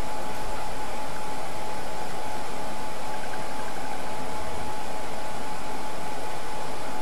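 Steady hiss with a constant whine just under 1 kHz running under it, unchanging throughout: the recording's background noise floor, with no other sound.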